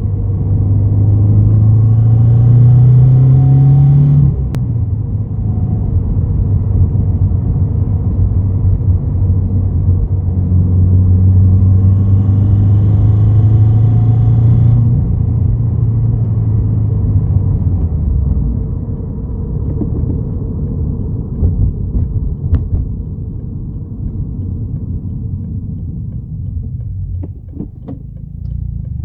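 2017 Subaru WRX's turbocharged 2.0-litre flat-four engine pulling under load twice, its pitch rising and then dropping suddenly as the throttle is lifted, with added high-pitched noise during each pull. It makes a rattle noise that others take for a boost leak.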